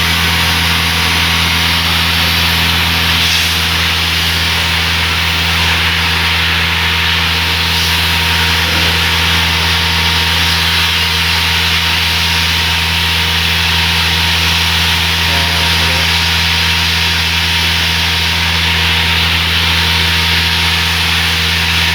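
Road construction machinery running steadily: a constant engine drone with a dense hiss above it, unchanging throughout.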